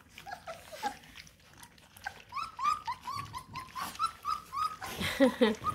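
Bluetick coonhound puppies eating from a shared dish. About two seconds in comes a run of short, arched squeaks and whimpers, roughly three a second, with small clicks from the eating under them.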